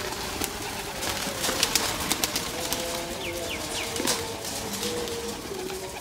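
Birds cooing in low, level notes that overlap one another, with a few short high chirps a little past the middle and scattered sharp clicks throughout.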